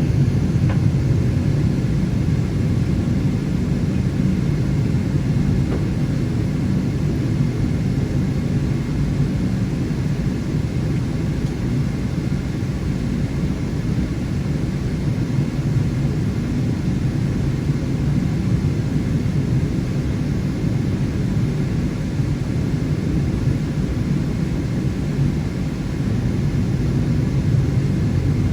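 Steady low rumble of a Boeing 777-300ER airliner heard from inside the cabin.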